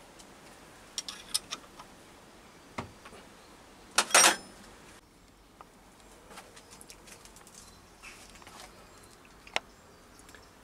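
Scattered light clicks and taps from hands handling the steel milling fixture on the lathe, with a short louder clatter about four seconds in.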